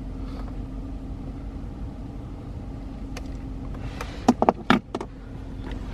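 Steady low hum inside a car, with three or four sharp clicks close together about four seconds in, as dash trim pieces are handled.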